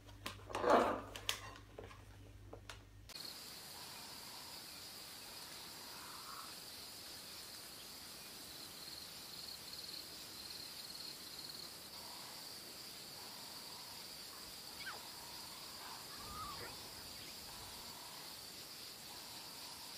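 A brief loud sound about a second in, then a steady high-pitched insect drone with a gentle pulse, with faint, scattered calls over it.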